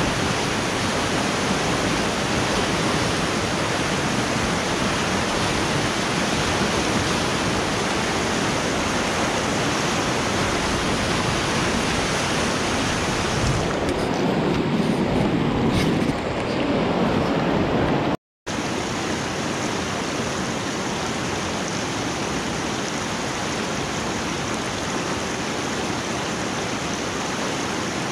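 Fast-flowing mountain river rushing over rocky rapids: a steady, even rush of white water. The sound cuts out for a moment about two-thirds of the way through.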